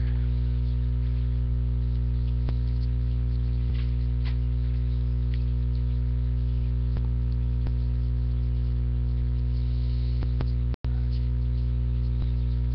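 Steady electrical mains hum in the recording, with a few faint light ticks from trading cards being handled. The sound cuts out for an instant a little before the end.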